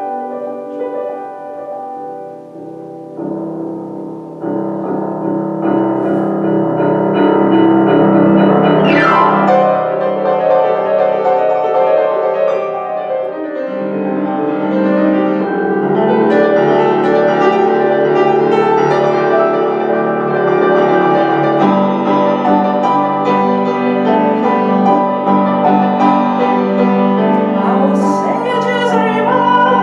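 Piano-led instrumental music with sustained keyboard chords, swelling louder a few seconds in, with a falling sweep about nine seconds in.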